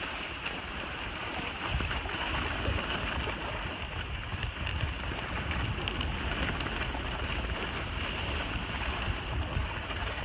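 Skis hissing and scraping over packed snow on a downhill run, mixed with the low rush of wind on the microphone.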